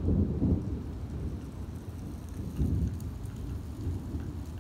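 Rolling thunder rumbling deep and low, loudest in the first half-second and swelling again about two and a half seconds in before easing off, over steady rain.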